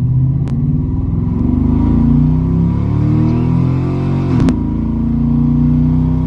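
A 2003 GMC Sierra pickup's engine, fitted with a cold air intake, accelerating hard from a standing start on a timed run, heard from inside the cab. Its pitch climbs steadily, drops at an upshift about four and a half seconds in, then climbs again.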